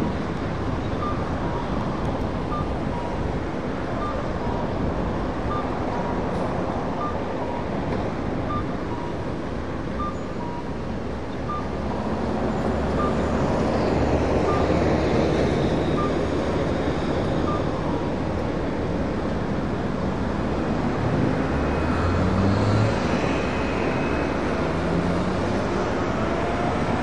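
Fire pumper turning out: engine and road noise, with a repeating two-note beep (about one note every three-quarters of a second) for the first half. The engine grows louder about midway, and the siren rises and falls twice in the second half.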